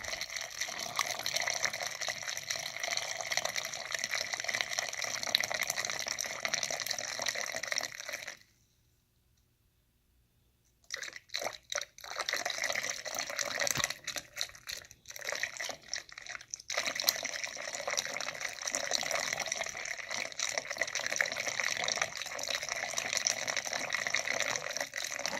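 Bleach solution poured into a split-system air conditioner's condensate drain line to flush it after a clog: a steady pour that stops about eight seconds in, comes back in short uneven splashes, then runs steadily again.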